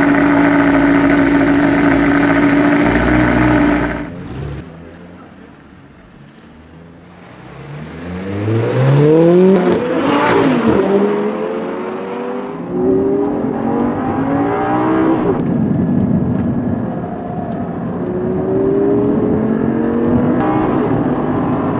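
Audi R8's V10 engine: first a loud, steady held rev at the exhaust that cuts off about four seconds in. Then, after a quieter stretch, the car accelerating past, its pitch rising and then dropping. Then, heard from inside the cabin, it pulls up through the gears, the pitch rising and falling back at each shift.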